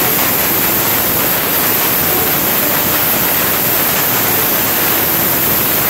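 Compressed-air blow gun blasting a freshly milled steel fixture clean: one steady, loud hiss.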